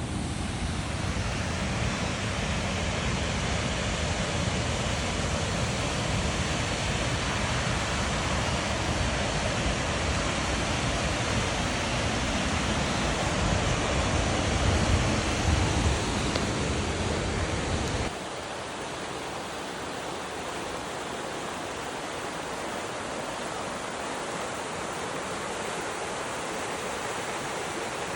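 Waterfall rushing steadily. A deep rumble under the rush drops out abruptly about two-thirds of the way through, leaving a lighter, hissier rush.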